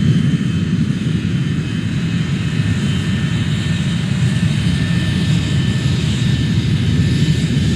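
Airport ambience sound effect playing: a steady, deep rumble of aircraft engines with faint, thin high whines over it.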